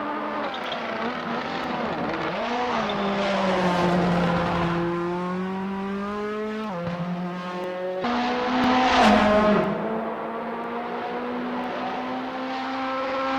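Racing car engine running hard, its pitch sliding down and climbing again, with a sharp drop about two thirds of the way through. It grows loudest about nine seconds in.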